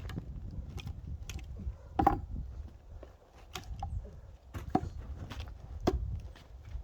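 Irregular sharp knocks of pine firewood being struck and split, about half a dozen blows with the loudest about two seconds in, over a steady low rumble.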